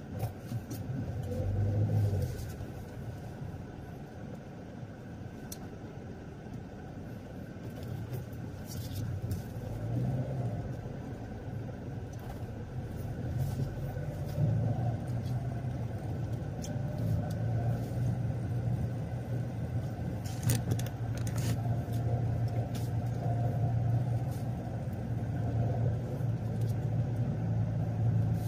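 A car driving, its engine and road noise a steady low hum that grows a little louder through the second half, with a few short clicks.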